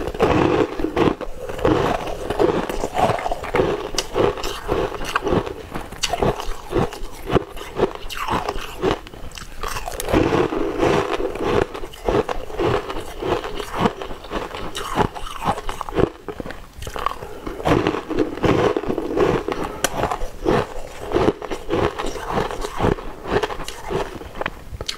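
Biting and crunching through frozen pieces of coloured ice, close to the microphone: a dense, continuous run of crisp cracks mixed with chewing.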